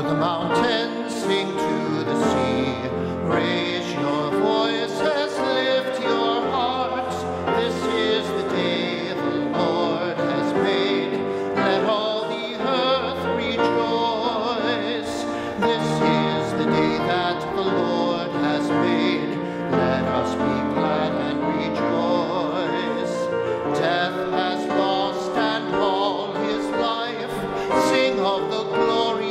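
Closing hymn of the Mass, sung with vibrato over keyboard accompaniment in long held notes.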